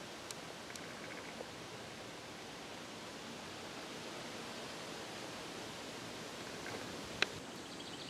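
Steady, even hiss of background ambience with a few faint clicks and one sharp click about seven seconds in.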